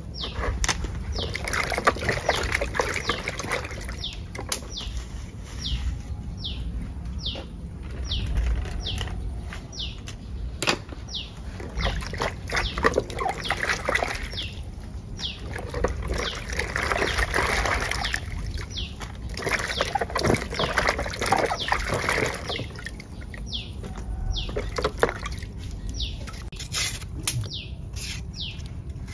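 Small birds chirping over and over in short, high notes that fall in pitch, about once a second, with bursts of splashing water every few seconds.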